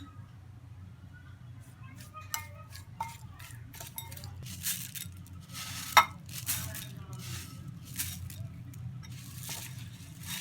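Puffed rice being tossed and mixed with spice mix, chanachur and chopped vegetables for jhalmuri, with dry rustling and irregular clinks of a spoon against the bowl; one sharp clink about six seconds in is the loudest. A steady low hum runs underneath.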